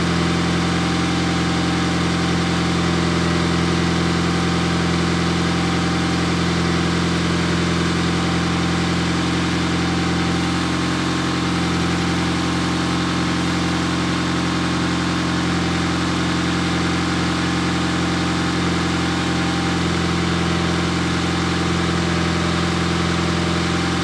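Turbocharged Honda Accord four-cylinder engine idling steadily.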